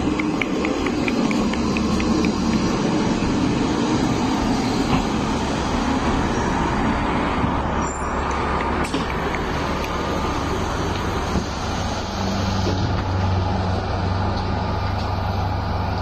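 Kominato Railway diesel railcar pulling into the platform and stopping, its engine running. A brief high squeal comes about halfway through, then a sharp click. In the last few seconds the engine settles into a steady idling hum.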